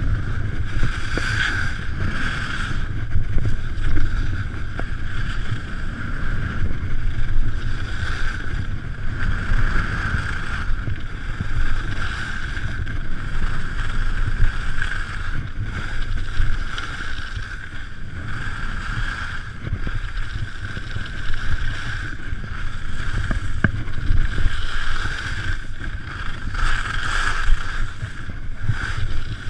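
Wind buffeting a GoPro Hero3 microphone while skiing downhill, with skis hissing and scraping over the snow. The hiss swells and eases every second or two.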